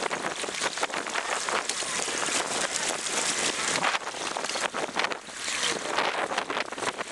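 Wind and water rushing around a boat: a loud, steady rushing noise that rises and falls, with brief dips.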